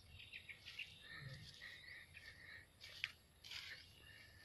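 Near silence: faint outdoor ambience with a few small, high chirps and one sharp click about three seconds in.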